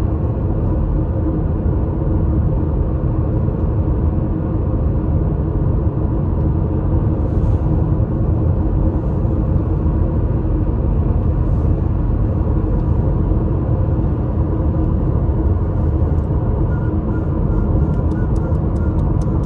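Steady road and engine noise of a car cruising on a highway, heard from inside the cabin.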